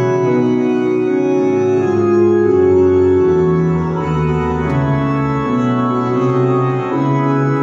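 Organ playing a hymn in held chords that change every second or so, with a bass line moving beneath them.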